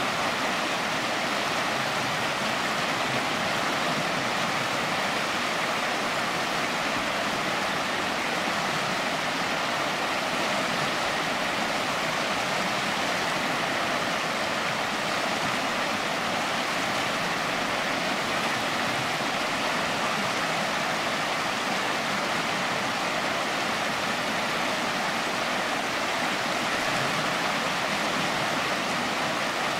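Shallow river water running over rocks in light rapids, a steady rush of water.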